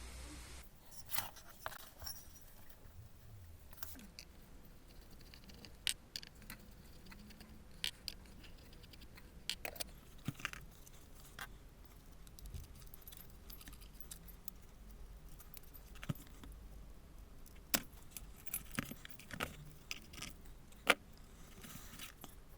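Irregular small clicks and metallic clinks of tools and small metal parts being handled, the sharpest about three-quarters of the way through, over a faint steady background hum.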